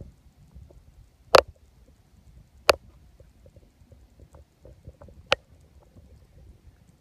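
Handling noise on a handheld phone's microphone: a low, uneven rumble with scattered faint ticks and three sharp knocks, about a second and a half in, near three seconds, and just past five seconds.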